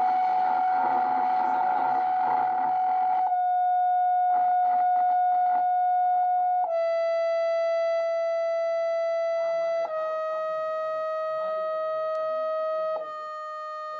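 Loudspeaker playing a steady, buzzy test tone from a frequency-generator app, stepping down in pitch four times, each step shaking the sand on a Chladni plate into a new resonance pattern. A rough buzzing noise lies under the tone for about the first three seconds.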